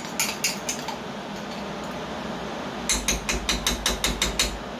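Rapid ratchet-like mechanical clicking: a few scattered clicks at first, then, about three seconds in, a quick even run of about ten clicks, some six a second.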